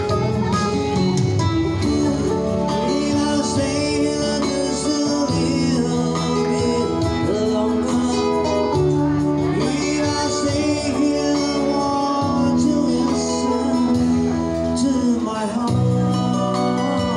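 Live band playing a song: singing over guitar and steady backing.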